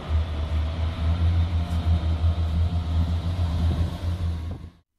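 Class 142 Pacer diesel multiple unit running, a steady low diesel rumble that cuts off suddenly just before the end.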